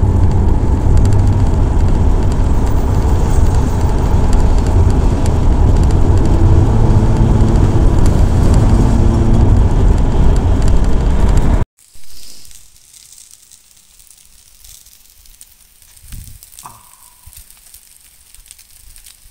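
Steady road and engine noise inside a car driving on a highway, loud and deep. It cuts off abruptly about twelve seconds in, replaced by faint sizzling and crackling of sausages on a barbecue hotplate.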